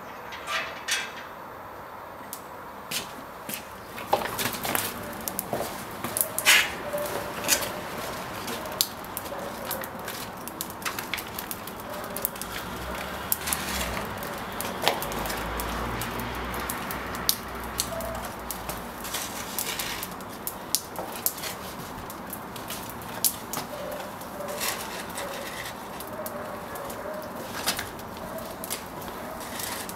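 Outdoor ambience with birds calling now and then, among many short sharp taps and clicks; a low rumble runs through the middle.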